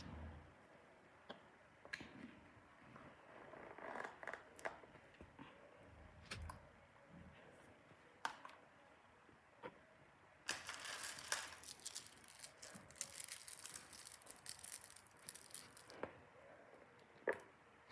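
Hands handling a faux-leather jewelry box: a sharp click as its strap snap is undone, then scattered light clicks and knocks as the hinged halves and round trays are swung open. About ten seconds in comes a stretch of several seconds of crinkling and rustling as jewelry pieces are handled over the trays.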